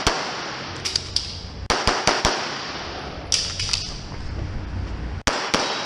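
Rapid pistol shots fired during a USPSA stage, in quick pairs and strings over the first couple of seconds, then a pause and more shots near the end.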